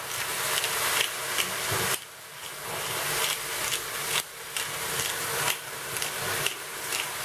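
Hand pepper mill grinding a mixed peppercorn blend: a dry rasping made of quick twists, which pauses briefly about two seconds in and again about four seconds in.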